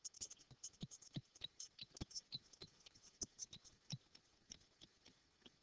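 Faint, irregular taps and clicks of a stylus writing on a tablet screen.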